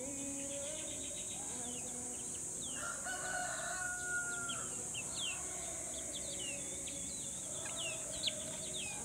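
Native chickens: a rooster crows once, a held call of about a second and a half about three seconds in, with lower clucking calls around it. Small birds chirp in short falling notes throughout over a steady high insect drone.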